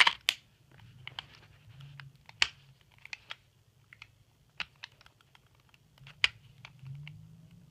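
Irregular sharp clicks and light knocks from an Elite Force 1911 Tac airsoft pistol being handled, its safety lever being worked while it sticks and won't go back. The loudest clicks come right at the start, about two and a half seconds in and about six seconds in.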